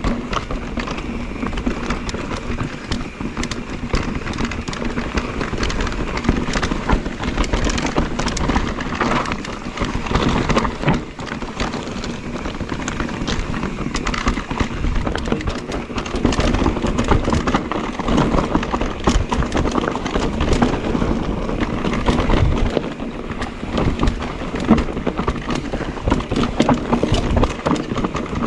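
Mondraker Crafty electric enduro mountain bike riding a rough rocky trail: tyres crunching and crackling over stones and gravel, with a dense, continuous clatter of small knocks from the bike and a faint steady hum underneath.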